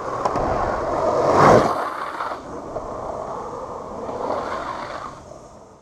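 Longboard urethane wheels rolling and sliding on asphalt, a rushing noise that swells to its loudest about a second and a half in, then dies away.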